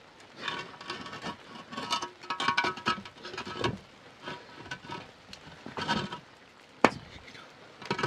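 Lightweight concrete blocks scraped and knocked against each other as they are pushed into place on a block wall: a run of irregular grating scrapes, some with a squeaky edge, and one sharp knock near the end.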